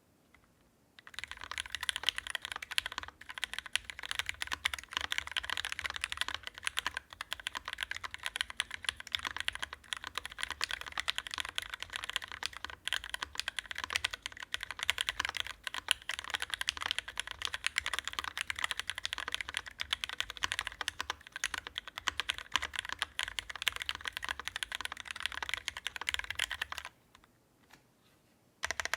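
Fast, continuous typing on a Linworks Dolphin mechanical keyboard with lubed Cherry Hyperglide Black linear switches, an aluminium plate and GMK Dracula keycaps. The typing starts about a second in and stops about two seconds before the end.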